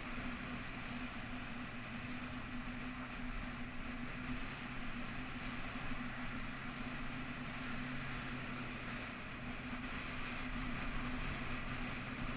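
Motorcycle engine running at a steady cruising speed, a constant low drone, with wind and road noise rushing over the microphone.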